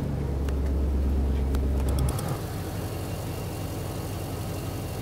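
Car engine idling just after being started, steady and even. A strong low hum sits over it for the first two seconds and stops suddenly, leaving the plain idle.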